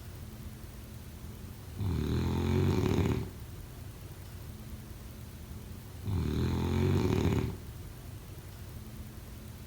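A sleeper snoring in a steady rhythm: two loud snores, each about a second and a half long and about four seconds apart, with softer breathing between them.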